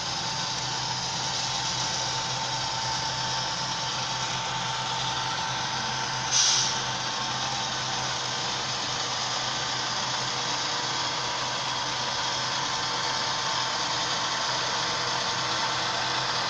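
Soundtraxx Tsunami 2 DCC sound decoder playing a diesel locomotive engine running steadily, heard through the small speaker inside an HO-scale model locomotive. A brief, loud hiss comes about six seconds in.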